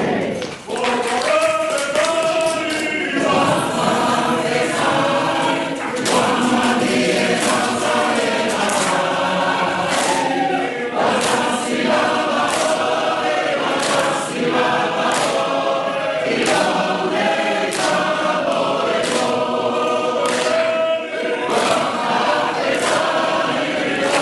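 A large group of voices singing a song together, with a regular sharp beat about once a second.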